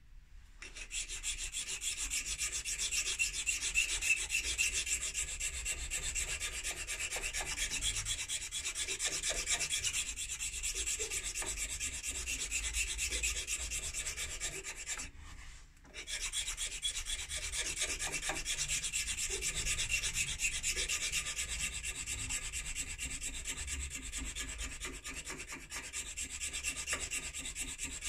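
Flat hand file scraping back and forth in rapid strokes across a stem clamped in a lathe chuck, a steady dry rasping, with a short pause about halfway through.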